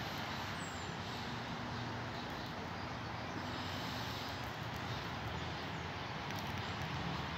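Distant truck engine running as a steady low rumble, with a faint hum that fades about three and a half seconds in.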